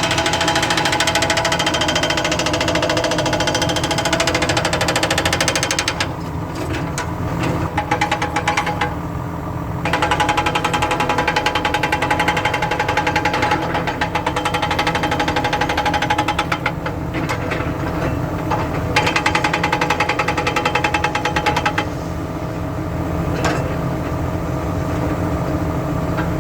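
Excavator-mounted hydraulic breaker hammering rapidly over the running diesel engine. The hammering lets up for a few seconds twice, about six seconds in and again near the end, leaving the engine sound.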